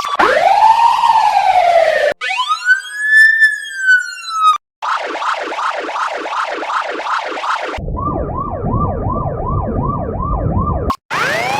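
Police siren sound effects cut one after another. Two slow rising-and-falling wails come first, then a fast yelp of about three sweeps a second, then another fast yelp over a low rumble. A new wail begins near the end.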